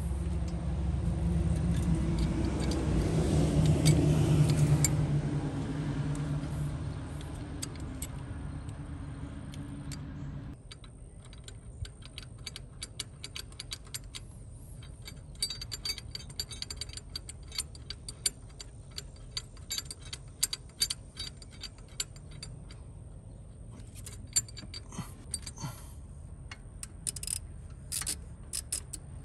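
A low engine hum that swells about four seconds in and fades, then stops abruptly. After that come many short metallic clicks and clinks in irregular clusters, the sound of hand tools being used as a bolt is refitted on the Duramax turbo's boost control solenoid housing.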